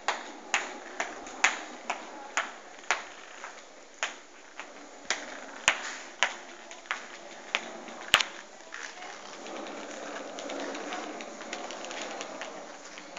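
Footsteps clicking on a hard wooden floor, about two a second. About nine seconds in they give way to the steady rumble of a pull-along toy's small wheels rolling over the floor.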